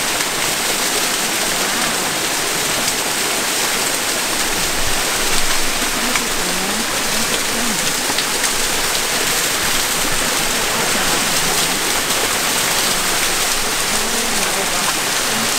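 Small rainforest waterfall splashing down a rock face: a steady rush of falling water.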